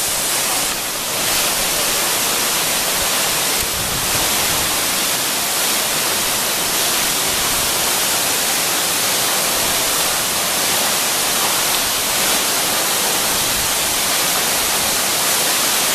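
Waterfall, a steady loud rush of falling water close to the microphone.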